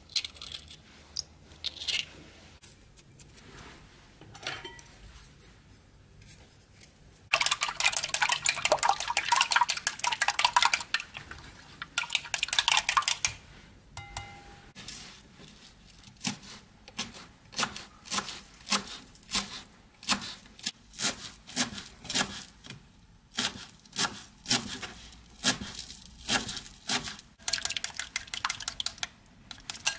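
Wooden chopsticks beating raw egg in a ceramic bowl, clicking against the bowl. After a few scattered taps, a fast run of light clicks lasts several seconds. Then come slower, even stirring strokes, about one and a half a second, which quicken near the end.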